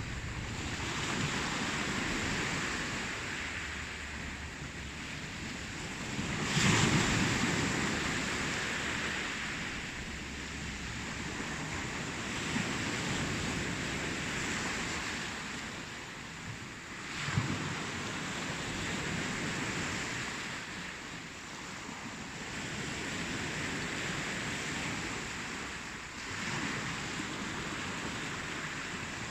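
Ocean waves breaking and washing up the shore in a steady wash, swelling and easing every few seconds, with a few louder crashes: one about six seconds in, one past the middle and one near the end.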